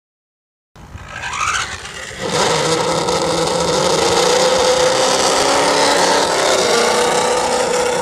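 Steady rushing noise with a low hum inside a 2016 Nissan Pathfinder's cabin. It starts just under a second in and steps up louder about two seconds in.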